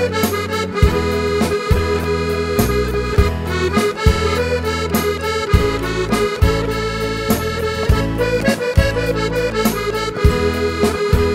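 Chromatic button accordion playing the melody of an Aromanian folk song's instrumental break, over a bass line and a steady beat.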